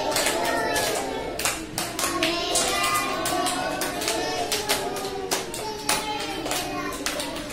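Several people clapping in an uneven patter, with children's and adults' voices singing and talking along.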